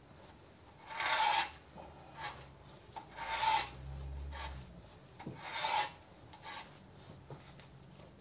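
Hand-turned valve-seat cutter rasping in strokes as it cuts a valve seat pocket in a Ford flathead engine block, deepening it to match the others. Three loud rasping strokes come a little under two seconds apart, with fainter scrapes between them.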